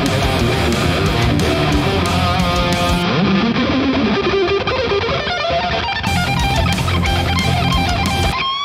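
High-gain distorted electric guitars, a Jackson RR3 with EMG active pickups through the Nembrini MRH-159 amp-sim plugin, playing a heavy metal rhythm part with a lead guitar line over it. Near the end the lead bends up into a held note with vibrato.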